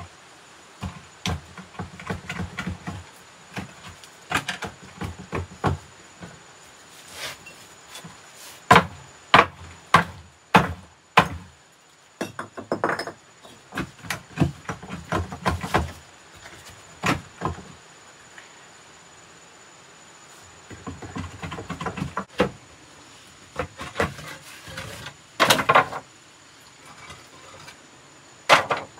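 A series of irregular knocks and scrapes, some in quick clusters, with a lull about two-thirds of the way through.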